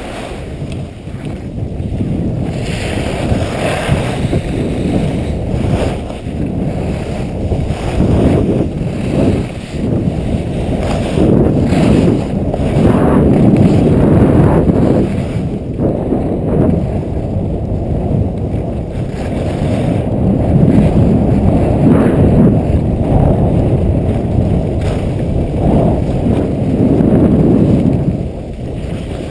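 Wind buffeting a GoPro's microphone as a skier runs downhill: a loud, low rumble that swells and eases every few seconds with speed, mixed with skis hissing and scraping over packed snow.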